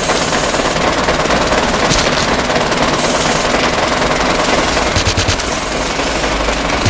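Loud, continuous, rapid mechanical rattling and clatter, dense and without letup.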